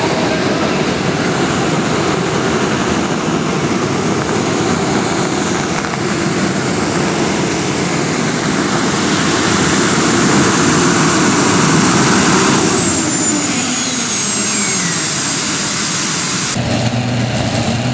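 Modified pulling tractor's engines running wide open under full load as it drags the weight sled: a loud, dense roar with a high whine over it. About thirteen seconds in the pitch falls as the engines wind down at the end of the pull. Near the end the sound cuts abruptly to a lower, steady engine idle.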